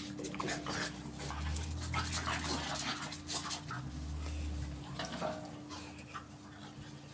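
French bulldogs panting with short, noisy breaths and a few faint whimpers while they play-wrestle. There are two low rumbles, about a second in and again about four seconds in.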